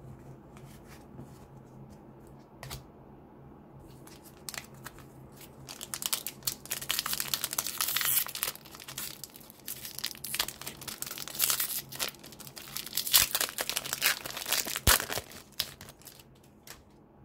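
Foil trading-card pack wrapper being torn open and crinkled by hand: a few light clicks at first, then dense crackling from about six seconds in that dies away near the end.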